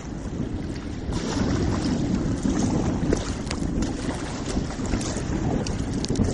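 Strong wind buffeting the microphone in a steady low rumble, with scattered splashes of sea water around a kayak.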